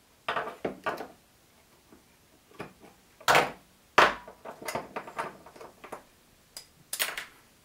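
Bassoon reed cane being trimmed to shape on a metal shaper with an X-Acto knife: short scraping knife cuts and clicks of the tool being handled, in irregular bursts with brief pauses.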